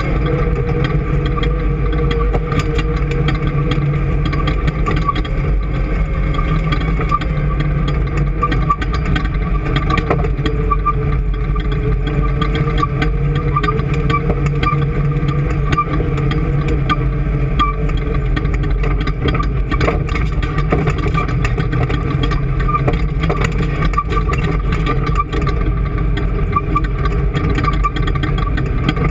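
An engine running steadily at a constant speed, its pitch holding almost level with only a slight dip about ten seconds in.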